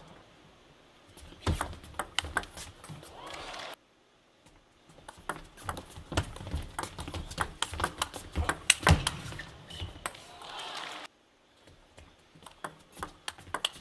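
Table tennis ball clicking off bats and table in fast, irregular rallies, with brief crowd noise after points. The sound cuts off suddenly twice.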